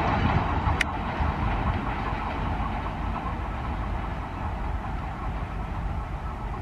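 Double-stack container freight train rolling away, the rumble and wheel clatter of its wagons slowly fading as the brake van at the rear recedes. A short sharp click about a second in.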